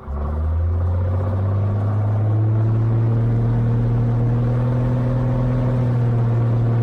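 Cessna 182's six-cylinder piston engine and propeller going to full takeoff power: the engine note comes in suddenly, climbs over the first couple of seconds, then holds steady at full power for the takeoff roll.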